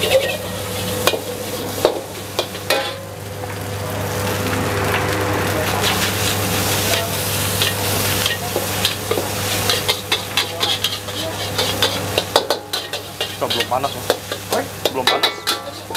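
Rice stir-frying in a wok with a steady sizzle, a metal wok spatula scraping and clanking against the wok in quick, irregular strokes that come thicker in the second half.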